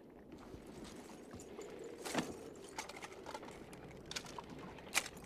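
Faint scattered clicks and clinks of metal gear shifting, like chainmail and armour fittings moving, with a sharper clink about two seconds in and another near the end.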